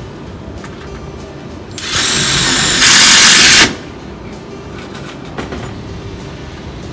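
Cordless drill driving a screw through a metal hinge into a wooden countertop board. It runs in one burst of about two seconds, about two seconds in, and gets louder in its second half.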